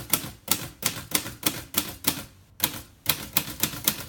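1941 Royal Aristocrat manual typewriter typing out the symbol keys: one sharp typebar strike after another, about three to four a second, with a brief pause about two and a half seconds in.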